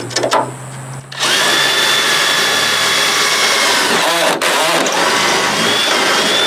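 Electric drill running at speed as the bit bores through a wooden boat transom board, with a brief break partway through and winding down near the end. A few clicks come before the drill starts.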